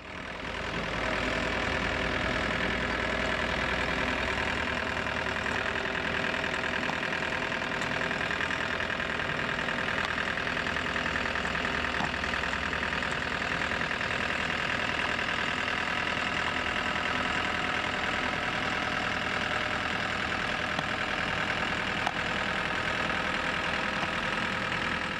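Micropile drill rig's engine power pack running steadily at a constant pace.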